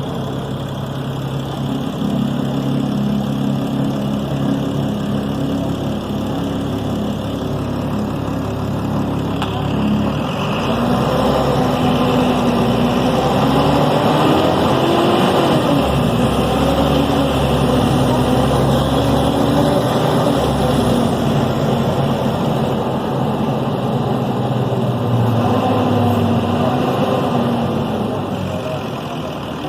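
Deutz BF6M 1013 inline-six turbo diesel of a Tatsa Puma D12 city bus running. It holds a steady pitch at first; from about ten seconds in it gets louder and its pitch rises and falls several times before settling near the end.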